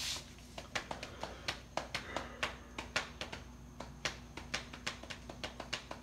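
Mondial Super Power 40 table fan running with a steady low hum and a rapid, slightly uneven clicking, about four clicks a second, after a short sharp noise right at the start.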